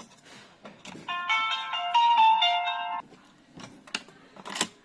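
OSPON OS359FA smart lock playing its electronic power-on chime, a short melody of several notes lasting about two seconds, as the battery goes in. A few light clicks follow near the end.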